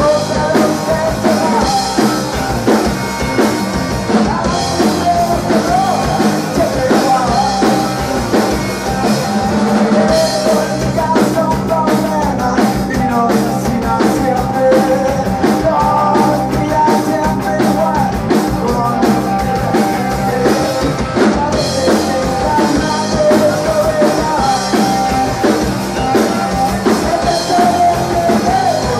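Rock band playing live: electric guitars and a drum kit with a steady beat.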